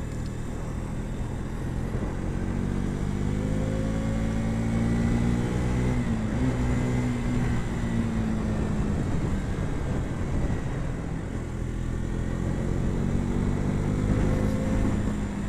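KTM RC 200's single-cylinder four-stroke engine heard from the rider's seat while riding. The engine note climbs for a few seconds, breaks briefly about six seconds in, eases off and sinks, then climbs again near the end. A steady rush of wind and road noise runs underneath.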